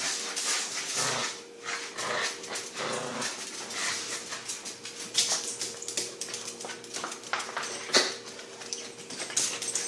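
A dog tugging on a toy while it is dragged across the floor, making dog noises over a run of short scuffs and clicks.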